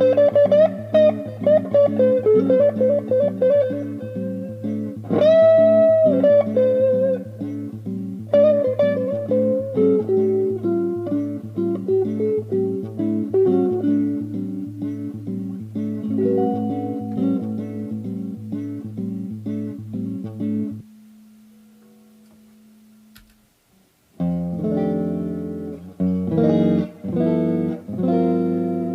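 Fernandes FST-50 Stratocaster-style electric guitar playing a quick run of picked single notes over a repeated low note, with a string bend about five seconds in. About two-thirds of the way through, the playing stops and one held note fades out; near the end, chords are strummed.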